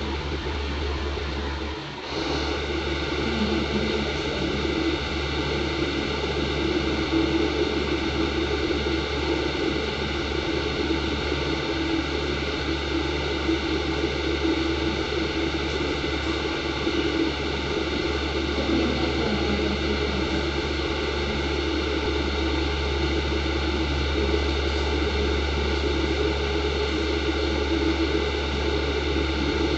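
A steady hum with hiss, unchanging except for a brief dip about two seconds in.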